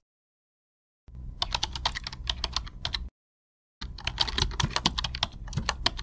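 Typing on a computer keyboard: two quick runs of rapid keystrokes, about two seconds each, with a short pause between them.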